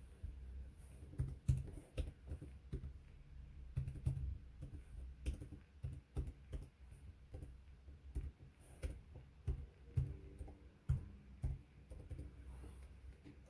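Irregular light clicking and tapping, a few strokes a second with dull low thumps under some of them.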